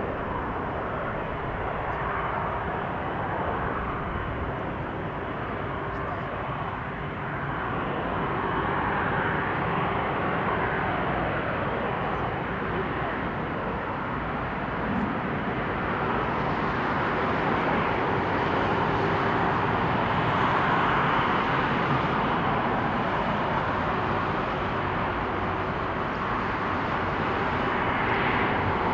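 Airbus A330-200 jet engines running at low taxi power, a steady roar and whine that grows louder partway through as the airliner rolls closer.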